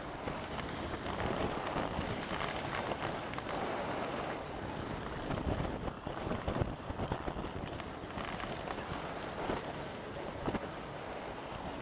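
Wind rushing over a small camera's microphone as a short-track speed skater skates fast on the ice, with scattered scrapes and knocks of skate blades on the ice.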